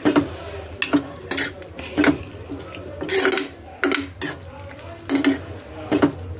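Steel ladle stirring chunks of brinjal curry in a metal cooking pot, knocking and scraping against the pot's sides and bottom in irregular clinks, about two a second.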